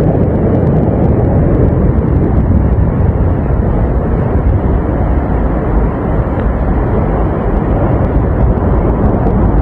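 Avalanche roaring down a mountain slope: a loud, steady, deep rumble that keeps on without a break.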